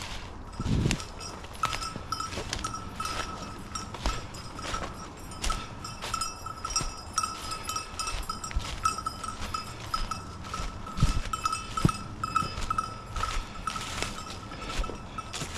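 A hunting dog's bell collar jingles without a break as the dog quests through cover, so the dog is still moving and not yet on point. The hunter's footsteps and scattered knocks in the undergrowth sound under it.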